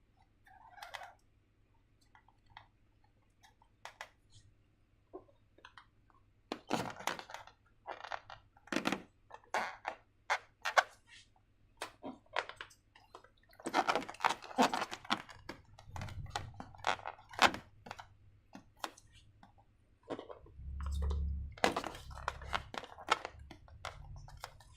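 Slime-making handling noises with transparent balloons: irregular crackles, clicks and squishes, growing busier partway through, with a few low thuds later on.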